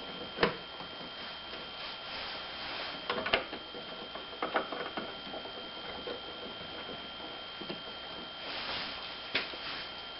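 Scattered sharp clicks and metallic taps from hand work setting the hood hinge bolts, a few separate strikes spread out, over a steady high-pitched hum.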